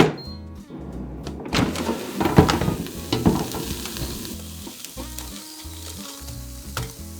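Food sizzling, with a few sharp knocks in the first half, over background music with a steady beat.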